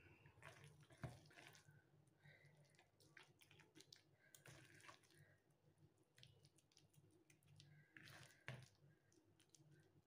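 Faint wet squishing and soft clicks of hands handling moist bread-and-egg stuffing and packing it into a raw rabbit, over a faint low hum.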